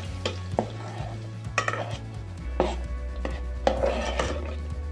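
A spoon stirring tomato masala in an aluminium pot: irregular knocks and short scrapes of the spoon against the pot, about eight in all, over a steady low hum.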